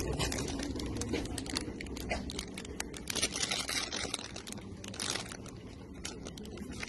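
Cellophane packaging crinkling as it is picked up off a shelf and handled: a dense run of sharp crackles that thins out near the end.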